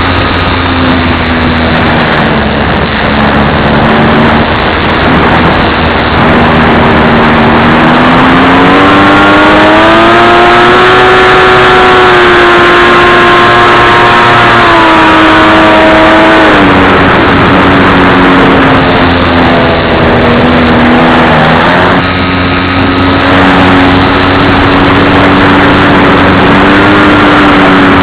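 Model plane's motor and propeller running loud and steady over a rush of noise. Its pitch climbs between about eight and ten seconds in as the throttle is opened, holds high, then drops suddenly at about sixteen seconds.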